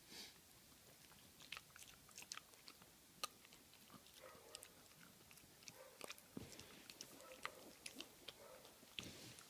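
Jack Russell terrier biting and chewing roasted almonds, a faint run of irregular sharp crunches.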